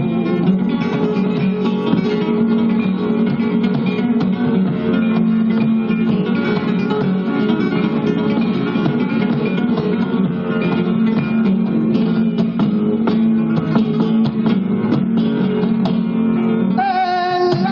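Flamenco guitar playing an instrumental passage between sung verses, a quick run of plucked notes. A singer's voice comes back in near the end.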